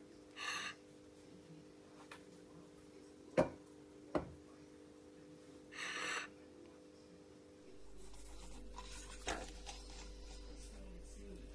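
Faint handling sounds, two brief rustles and two sharp clicks, then a hand rubbing salt over a raw pompano on a plate, a light continuous scraping with a click. A faint steady hum runs underneath.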